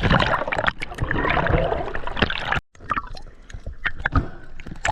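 Water splashing and sloshing, with many sharp clicks. It drops out abruptly for a moment about two and a half seconds in, then carries on.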